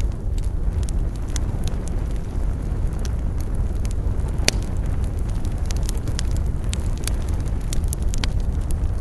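Campfire burning: a steady low rumble of flames with frequent small crackles and one louder pop about halfway through.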